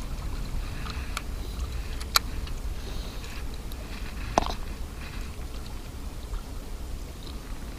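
Wind rumbling on the microphone, with a few sharp clicks from a baitcasting reel and line being handled, the loudest about two seconds in.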